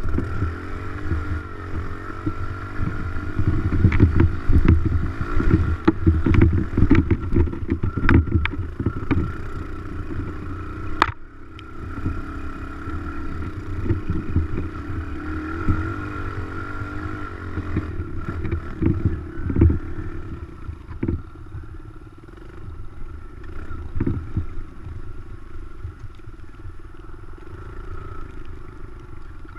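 Dirt bike engine running under way, steady with small rises and falls, mixed with frequent knocks and rattles, and one sharp click about 11 seconds in.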